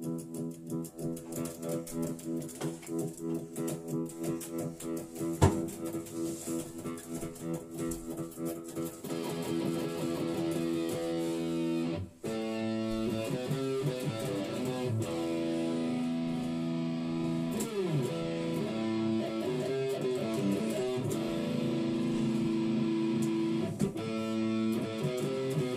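Electric guitar played without singing: a quick repeated picked figure for the first several seconds, then sustained chords and bent notes, with a short break about twelve seconds in.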